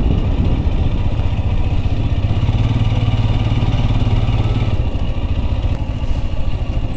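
Motorcycle engine running steadily while being ridden, a low hum that grows stronger in the middle and eases back after about five seconds.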